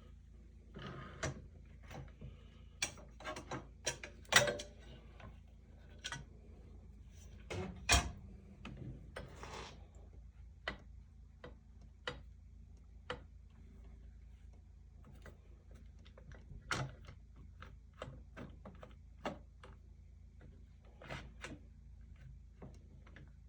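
Irregular clicks, knocks and small clanks of tools and metal parts being handled during machining setup, loudest about four and eight seconds in and thinning out later, over a faint steady low hum.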